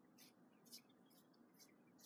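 Faint, short crinkling rasps about twice a second: a cat's tongue licking mover's stretch plastic wrap.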